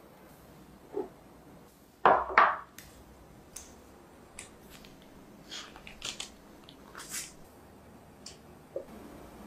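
Two loud knocks about two seconds in, then parchment paper crinkling in short crisp bursts as it is peeled off a set milk pudding, and a light tap of a knife near the end.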